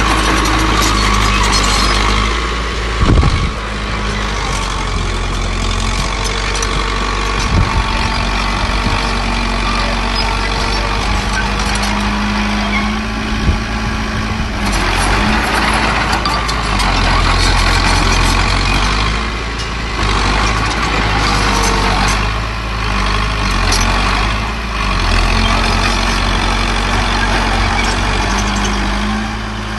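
Heavy diesel engines of earthmoving machinery running steadily, with a few sharp knocks and stretches of louder noise that swell and fade.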